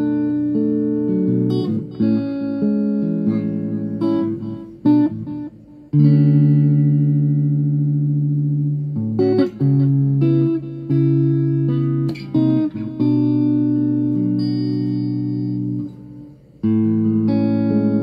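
Electric guitar played through a clean tone with a digital delay and an amp-simulator pedal, heard from a small Orange combo amp. Chords are struck and left to ring, with a new chord every one to three seconds, and the sound nearly dies away twice before the next chord.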